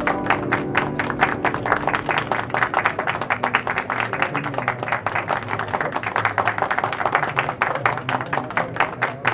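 Rapid typewriter key clacks, several a second, over music with a low sustained accompaniment.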